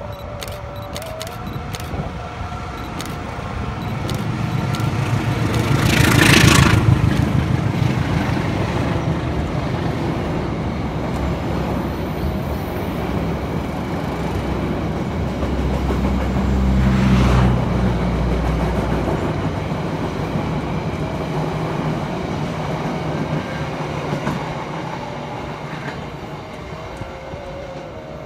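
Diesel-electric locomotive passing close beneath, loudest about six seconds in. A rake of passenger coaches follows, rumbling and clattering on the rails, with a second swell of low rumble around seventeen seconds. The sound then fades as the train draws away.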